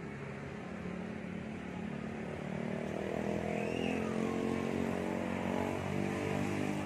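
A motor vehicle engine running at a steady pitch, growing louder over the first few seconds and then holding.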